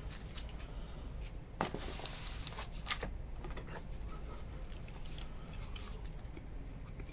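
Hands handling a trading card and clear plastic card holders: a few light clicks and a brief rustling slide about two seconds in.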